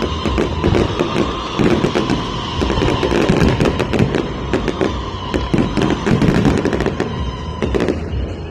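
Fireworks going off in a dense, rapid barrage of bangs and crackles, with deeper thuds among them, over background music.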